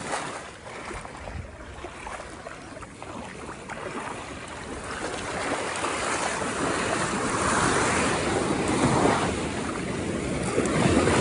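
Ocean waves and rushing water with wind buffeting the microphone, swelling louder midway and easing off near the end.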